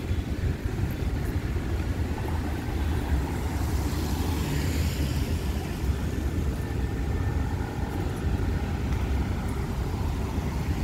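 Road traffic on a wet street: cars passing with tyre hiss, one swelling and fading about four to five seconds in, over a steady low rumble.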